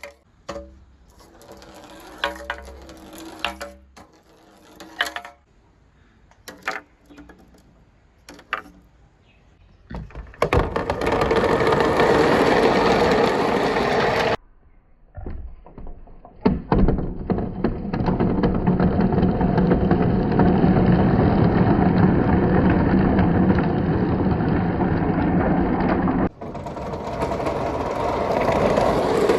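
Glass marbles clicking and ringing against each other. From about ten seconds in, a long loud rattling rumble of many marbles rolling through the plastic pipes and gutters, breaking off for a couple of seconds and then resuming.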